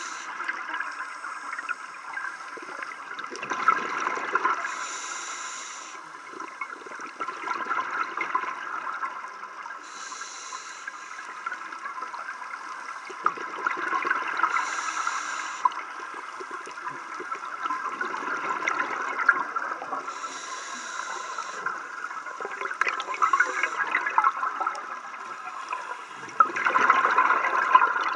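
Scuba regulator breathing heard underwater: short hissing inhalations alternating with louder rushes of bubbling exhalation, one breath about every five seconds.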